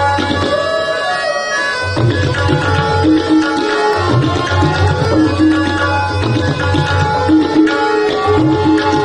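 Tabla solo in Hindustani classical style: deep, booming bayan strokes alternating with crisp, ringing dayan strokes in a fast rhythmic pattern. Under the drums, a harmonium holds sustained notes that step through a repeating melodic line, the lehra that keeps the cycle.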